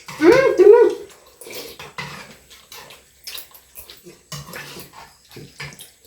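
A short, loud two-note cry in the first second, then repeated slurping of thukpa noodle soup and light spoon-on-bowl clinks as people eat quickly with spoons.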